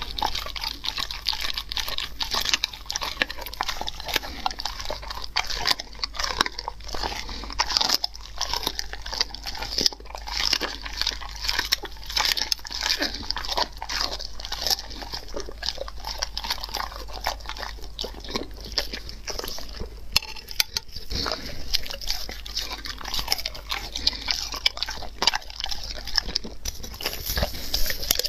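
A German Shepherd eating raw meat close to the microphone: continuous, irregular chewing and biting, with many sharp clicks.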